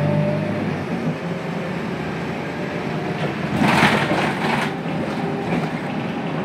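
Scania K280UB bus's rear-mounted 9-litre five-cylinder turbo diesel (Scania DC9) running as the bus drives along, heard from inside the passenger cabin. A loud burst of hissing comes about three and a half seconds in and lasts about a second.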